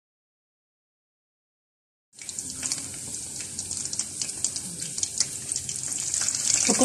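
Chicken pakora batter deep-frying in hot oil: after about two seconds of silence, a steady sizzle with many small crackling pops starts suddenly and grows louder toward the end.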